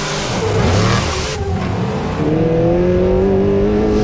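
Trophy truck's V8 engine at high revs, with a loud hiss of tyre noise through the first second and a half as it slides on pavement. From about two seconds in, the engine pulls steadily higher in pitch as it accelerates.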